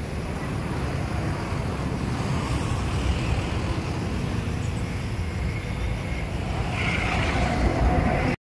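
Steady outdoor rumble of road traffic, heaviest in the low end, with a few faint passing tones late on; it cuts off abruptly just before the end.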